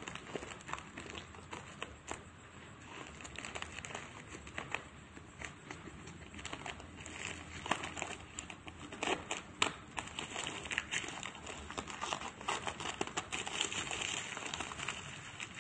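Plastic parcel wrapping crinkling and crackling as it is pulled and torn open by hand. The crackles are irregular, and they grow busier and louder in the second half.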